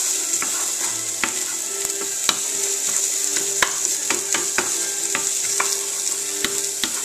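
Carrot sticks and ginger sizzling in a hot nonstick frying pan as they are stirred with a wooden spoon, the spoon clicking and scraping against the pan many times.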